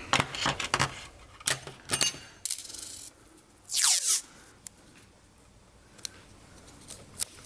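Small hard objects clicking and knocking together as they are handled, a quick run of them in the first two seconds. About four seconds in there is a short falling swish, then one more click near the end.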